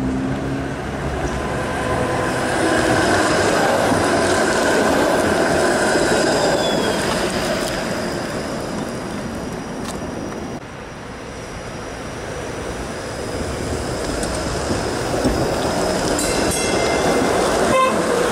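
TTC Flexity Outlook streetcars running along snowy street track, a steady rumble and hum that swells as a car passes close near the end. A short rapid ringing sounds just before it goes by.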